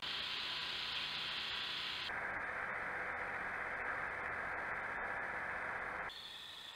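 Steady hiss of recording noise from a Browning Dark Ops Pro XD trail camera's microphone. Its tone changes abruptly about two seconds in, and again about six seconds in, where one clip cuts to the next.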